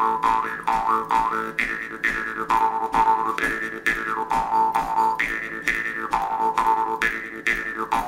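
Background music with a steady beat of about four pulses a second and a repeating melody with sliding notes.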